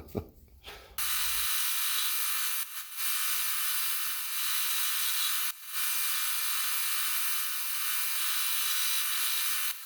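Small high-speed electric power tool motor running steadily with a high-pitched whine, cutting out briefly twice.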